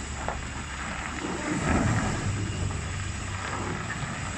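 Heavy truck's diesel engine running under load as it slowly moves a long lowbed trailer. It rises and gets louder about a second and a half in, then settles back to a steady low drone.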